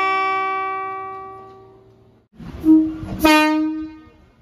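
Horn of a Nose Electric Railway 1700-series train. A two-note chord dies away over the first two seconds. Then a second, shorter blast sounds near the three-second mark and fades out within about a second.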